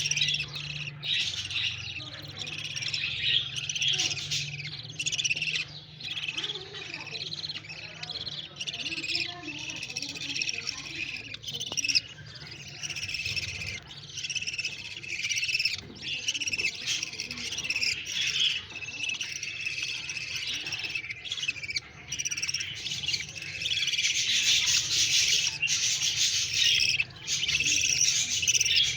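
Budgerigars chattering and chirping continuously, growing louder over the last several seconds.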